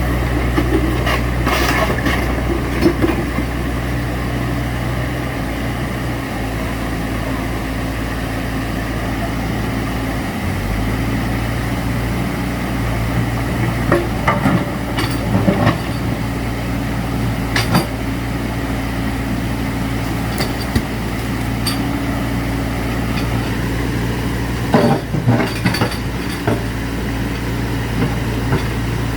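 An engine running steadily at a constant pitch, with scattered clanks and knocks over it.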